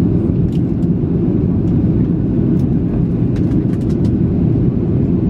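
Steady low roar inside the cabin of a jet airliner on its descent to land: engine and airflow noise, with a steady hum and a few faint ticks.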